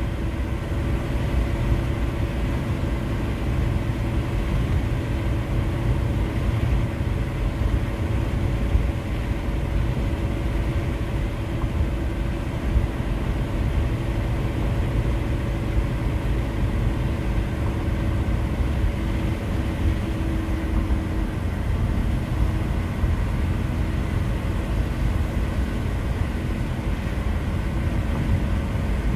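Steady road and engine noise inside a Volkswagen Eurovan's cabin while it cruises along a highway: a low, even tyre and road rumble with a faint steady hum over it.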